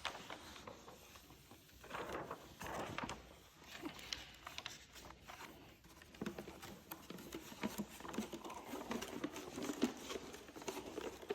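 Faint, irregular crinkling and rustling of plastic window tint film being handled, with scattered light taps and clicks.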